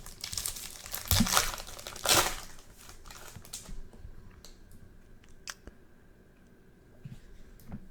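Foil wrapper of a Topps Chrome baseball card pack being torn open and crinkled, loudest in two spells about one and two seconds in and dying away after about four seconds. A few faint clicks follow.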